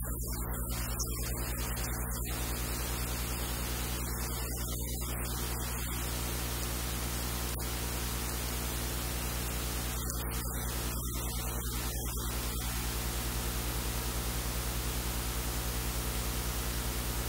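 Steady static-like hiss over a low electrical hum, with brief dips in the hiss now and then.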